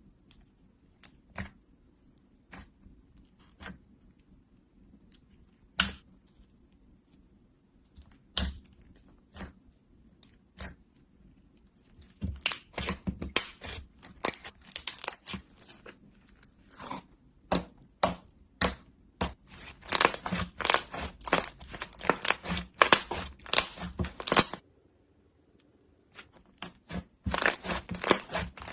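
Slime with clay mixed into it, worked by hand. Scattered sticky pops and clicks give way a little before halfway to a dense run of crackling clicks, which break off briefly near the end and then start again.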